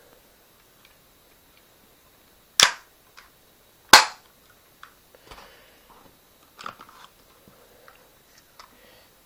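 Spring-powered airsoft pistol firing two sharp shots about a second and a half apart, the second louder, with faint clicks of handling between and after.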